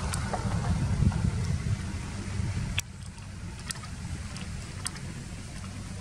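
Low wind rumble on the microphone, easing a little about three seconds in, with a few faint sharp clicks.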